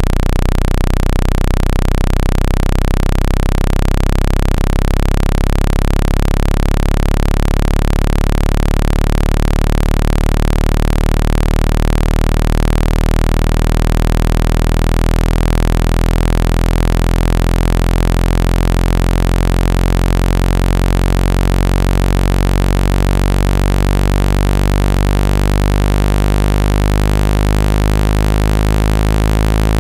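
Speaker-cleaning tone: a loud, steady, low electronic buzz thick with overtones and a hiss above it. It is played at full volume to shake water and dust out of a phone speaker.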